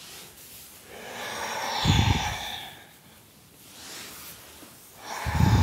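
A woman breathing slowly and deeply through her nose: a long breath swelling to a peak about two seconds in, a fainter one after it, and another strong breath near the end.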